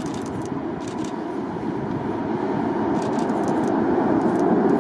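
Steady rumble of aircraft engines growing gradually louder, as an aircraft draws nearer.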